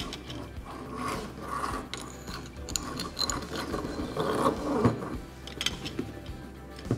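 Light metallic clicks and rattles of a pull-out-hose kitchen mixer tap's brass mounting parts and hose being handled and fitted back onto the tap's shank, in irregular short taps.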